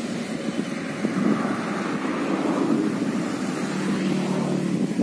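Wind noise on the microphone mixed with the engine hum of a vehicle passing on the road close by.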